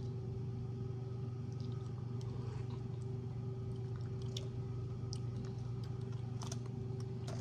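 Soft chewing with faint small clicks as someone eats a sweet-and-sour candy, over a steady low hum.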